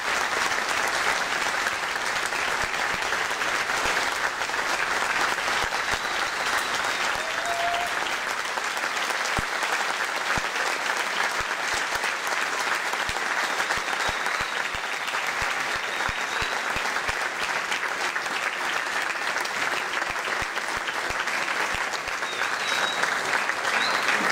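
Audience applauding steadily: continuous clapping at the close of a concert piece.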